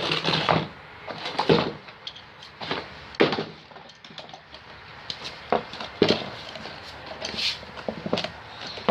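Irregular knocks and clicks, about ten in all, spaced unevenly, as parts and tools are handled during the hitch installation.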